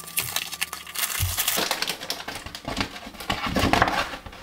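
Paper rustling and crinkling as a large paper envelope is torn open and LEGO instruction booklets are slid out, with crackling of plastic parts bags around them.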